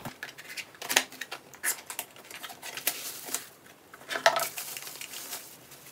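A small cardboard box being opened and a plastic-wrapped alarm clock pulled out of it: crinkling plastic and rustling packaging, with irregular clicks and scrapes, loudest about a second in and again about four seconds in.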